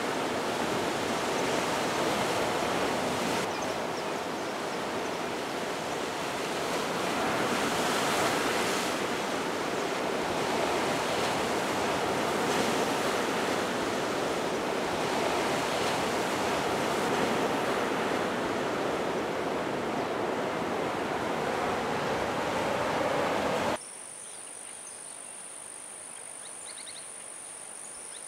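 Ocean surf breaking on a beach: a steady rushing wash that swells every few seconds as waves come in. About 24 seconds in it cuts abruptly to quiet forest ambience, with a steady high insect drone and a few faint chirps near the end.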